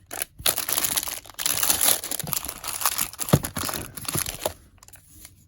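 Soap sample packaging crinkling and rustling as it is handled and rummaged through by hand, with a sharp knock about three seconds in.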